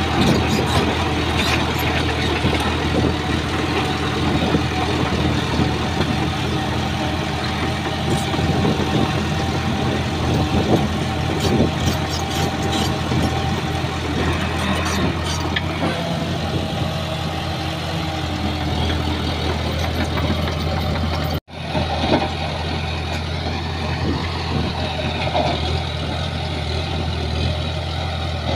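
Heavy diesel engine of a Shantui bulldozer running steadily under work, with a brief break in the sound about three-quarters of the way through.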